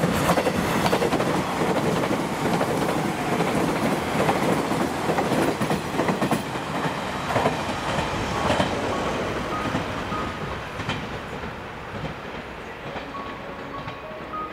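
JR West 381 series electric express train passing close by at speed, its wheels clattering rhythmically over the rail joints. The sound fades gradually from about two-thirds of the way through as the train pulls away.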